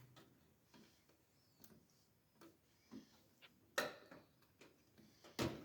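Faint scattered clicks and light taps of small plastic PC front-panel connectors and leads being handled, with two sharper clicks, one about four seconds in and one near the end.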